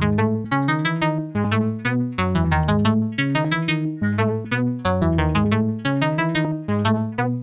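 Ableton Wavetable synthesizer, set to its FM Harmonics wavetable, playing a looping sequence of short pitched notes, several a second. Its tone keeps changing as a drawn automation envelope sweeps the oscillator's wavetable position.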